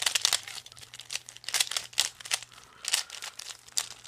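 Plastic Cyclone Boys 3x3 speed cube being turned quickly by hand to scramble it: rapid, irregular clicks and clacks of the layers, several a second.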